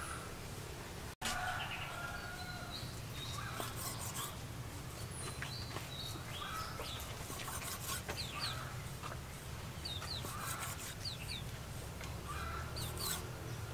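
Chickens clucking and small birds chirping in short, scattered calls, over a steady low rumble. A knife taps now and then as it slices raw beef kidney on a wooden cutting board.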